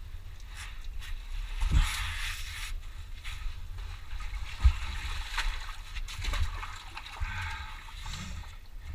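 Water sloshing and splashing as a person wades through a muddy pool, with a few thumps, the loudest about halfway through.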